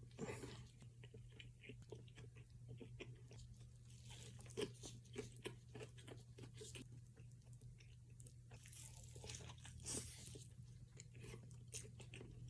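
A person chewing and biting into a fast-food bacon burger, quiet crunches and chews coming in quick, irregular succession over a faint steady low hum.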